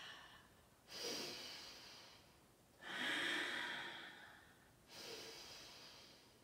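A woman breathing deeply and audibly during a yoga side bend: three long breaths about two seconds apart, each starting sharply and fading away.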